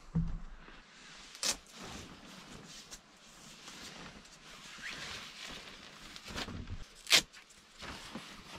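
Handling and rustling of canvas and tent fabric as a cover is fitted in place, with a soft thump at the start and sharp clicks about a second and a half in and, loudest, about seven seconds in.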